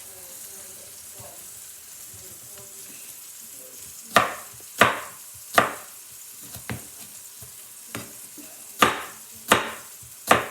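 A knife chopping potatoes into chips: sharp strikes begin about four seconds in, three in a quick row, then a couple of lighter ones, then three more near the end. A steady low sizzle of frying runs underneath.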